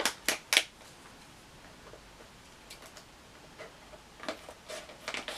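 Hands working at a stubborn clear plastic candy bag: a few sharp clicks and crinkles in the first half second, then a quiet stretch, then scattered clicks again in the last second or so.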